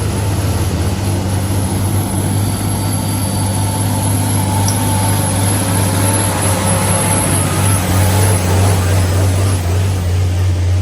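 Heavy truck engine running loud and steady under load on a steep uphill climb, a deep low drone that holds throughout.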